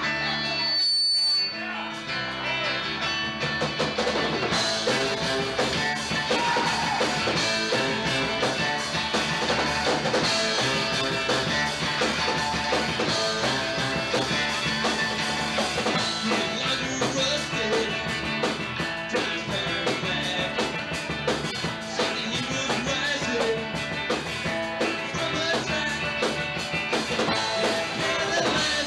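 Live rock band playing loud: two electric guitars, electric bass and drum kit. After a short guitar-led stretch, the drums and cymbals come in about four seconds in and the full band plays on.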